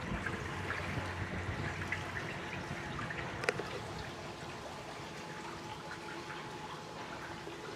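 Water lapping and trickling around a slowly moving boat, over a faint steady hum, with one sharp click about three and a half seconds in.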